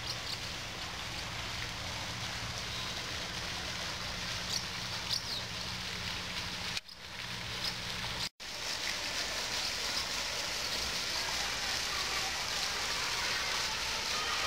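Steady outdoor background noise, an even hiss with faint high chirps, broken by a brief dip about seven seconds in and a sudden dropout just after eight seconds.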